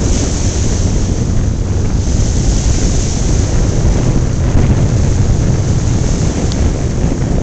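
Wind buffeting the microphone in a steady, heavy rumble, over waves washing in among rocks and wooden pilings.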